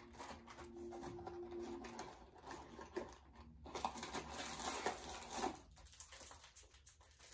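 Cardboard box of caramel stroopwafels being opened by hand, and the plastic packet of waffles inside pulled out and handled.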